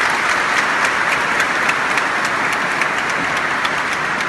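A crowd applauding in a large church: steady, dense clapping that eases off slightly near the end.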